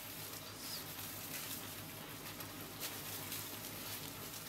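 Faint rustling and crinkling of plastic cling film as it is twisted and knotted at the end of a wrapped roll, with a few soft scrunches over a low steady hum.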